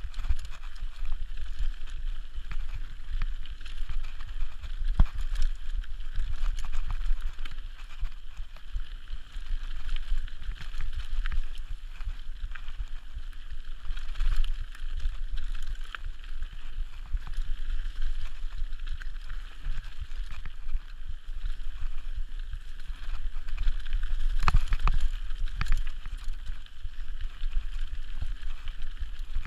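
Mountain bike descending a dirt trail, heard from a rider-mounted camera: steady wind rumble on the microphone over the hiss and rattle of tyres and bike on the dirt, with sharp knocks from bumps, the loudest about 5 seconds in and again about 25 seconds in.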